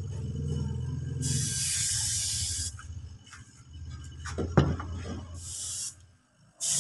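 HVLP spray gun hissing in short passes, a burst of about a second and a half and then a brief one near the end, as a thin coat of candy-tone purple paint is laid on. A steady low hum runs underneath, and a few sharp knocks come a little past halfway.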